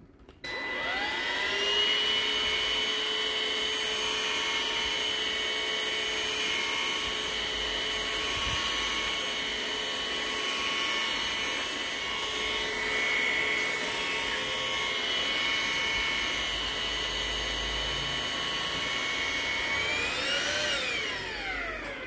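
Hericaine H10 cordless stick vacuum switched on about half a second in: its motor spins up within a second or so to a steady high whine with several held tones. Near the end the whine rises briefly in pitch, then winds down as it is switched off.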